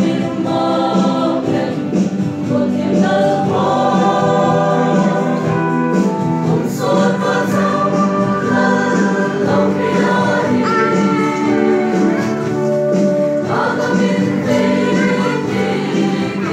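A mixed choir of young men and women singing together, with long held notes.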